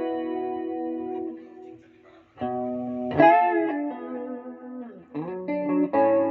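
Squier Bullet Telecaster electric guitar with four-sound push-pull wiring, playing chords that ring and die away. A chord is struck hard about three seconds in with its pitch wavering, and more notes and a fresh chord follow near the end.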